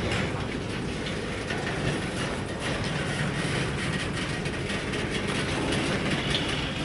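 Freight train cars rolling past: a steady rumbling rattle with many short clicks from the wheels on the rail.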